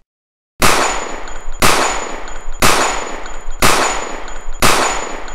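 Gunshot sound effects: five loud shots about a second apart, each with a long ringing tail and a thin high ring after it.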